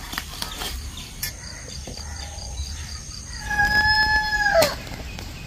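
A rooster crowing, one long held note that drops away at the end, about three and a half seconds in. Before it come a few sharp knocks of a hand tool striking dried coconuts.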